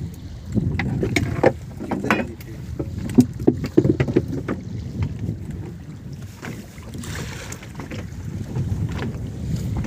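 Wind rumbling on the microphone aboard a small fibreglass fishing boat, with a run of sharp knocks and thuds on the deck in the first few seconds as the landed kingfish is handled.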